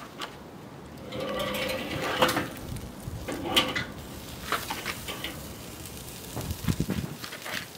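Wire roasting rack scraping and clinking against the steel cooking grate of a Weber kettle grill as the smoked turkey is lifted off. There are two drawn-out metallic scrapes with a ringing tone, about a second in and again near the middle, then scattered clicks and a few light knocks.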